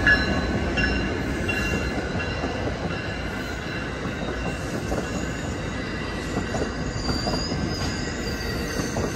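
Amtrak San Joaquin bilevel passenger cars rolling slowly past on the station track as the train comes in to its final stop: a steady rumble of wheels on rail, with faint high wheel squeals now and then.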